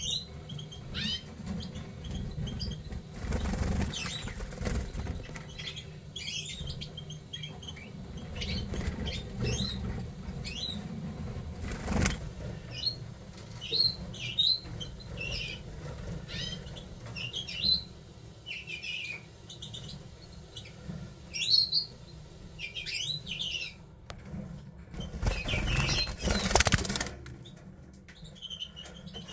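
Siberian goldfinches giving short high chirps and twittering song phrases. Wing-flapping comes in two stretches, about three seconds in and again near the end, and there is one sharp tap about twelve seconds in. A steady low hum runs underneath.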